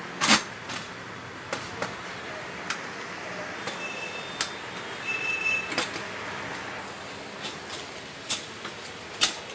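Stainless steel tube frame of a pipe salon chair being handled during assembly: sharp metallic clanks and knocks, the loudest just after the start and another near the end. Twice in the middle there is a brief high squeak, and a steady hiss runs underneath.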